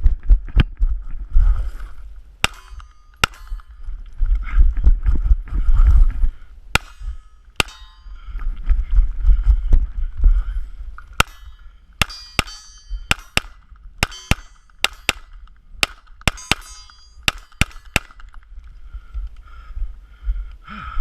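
Gunshots fired one at a time at a range, about two dozen sharp reports at an uneven pace that comes quicker in the second half. Low rumbling sits under the shots in the first half.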